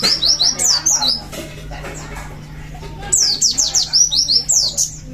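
White-eyes (pleci) singing in two bursts of rapid, high, sharply falling notes: one at the start lasting about a second, the other from about three seconds in until near the end.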